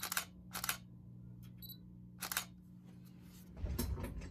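Canon EOS Rebel T100 DSLR taking pictures: sharp mirror-and-shutter clicks at the start, again about half a second later and about two seconds in, with a short high focus-confirmation beep just before the last one. Handling bumps near the end.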